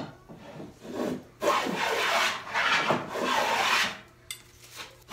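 Metal rabbet plane, a Stanley 78, cutting a rabbet along the edge of a walnut board: four strokes in the first four seconds, the middle three longest and loudest, then a pause with one light click.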